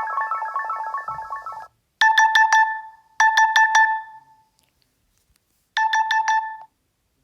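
Nokia 2.4 phone tones playing as previews: a fast tinkling melodic tone cuts off under two seconds in. A plain electronic beep tone follows, four quick high beeps played three times with short pauses between.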